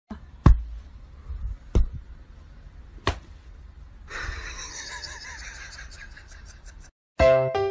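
Three sharp smacks, about a second and a quarter apart, then a few seconds of soft breathy vocal sounds. Music starts near the end.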